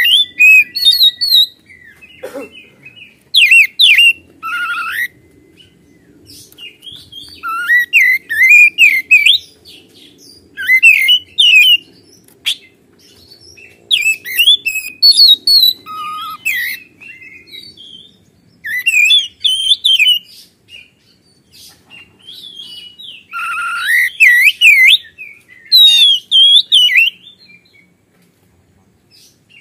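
Oriental magpie-robin (kacer) singing loudly in about eight bursts of fast, varied whistled and warbling phrases, with pauses of a second or two between them.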